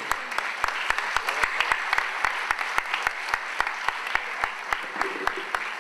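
Audience applauding, with sharper claps close to the microphone at about four a second.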